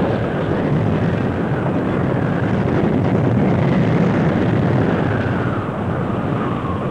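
Tornado roar: a loud, steady rushing of wind with no break. A faint whine glides down in pitch over the last few seconds.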